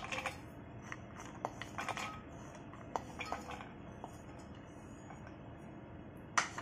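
Steel kitchen utensils and dishes being handled: scattered light clinks and taps, with one louder knock near the end.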